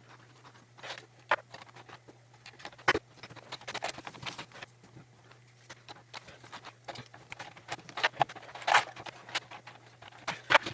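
Hands working on a disassembled membrane keyboard: irregular clicks, taps and short crinkling noises from plastic parts and packing material being handled, over a steady low electrical hum.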